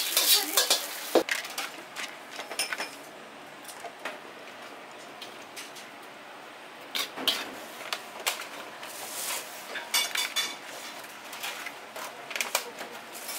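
Kitchen utensils, pots and dishes clinking and clattering in irregular knocks, with a faint steady hiss between them.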